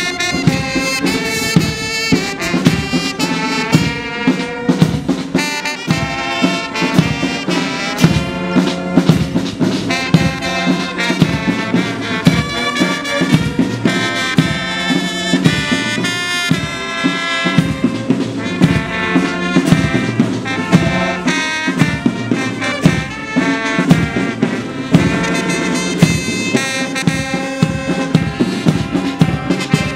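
Brass band music: trumpets and trombones playing a tune over a steady drum beat.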